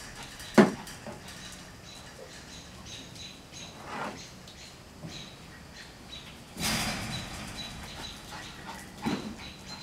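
Repeated short, high chirping calls in the background, which the uploader takes for squirrels, with a puppy's short, loud yelp about half a second in and softer yelps and scuffles later.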